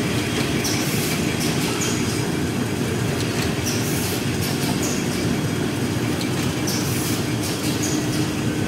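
Wet wipes packing machine running: a steady mechanical clatter, with short high hisses recurring about every one to two seconds as stacks of wipes are fed into the film wrapper.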